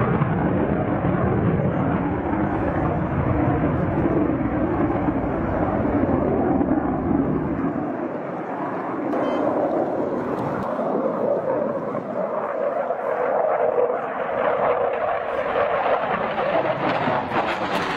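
A JF-17 Thunder fighter's Klimov RD-93 turbofan at high power in a display flight: a continuous jet roar whose pitch shifts as the aircraft turns overhead. About halfway through the deepest rumble drops away and the roar turns higher and thinner.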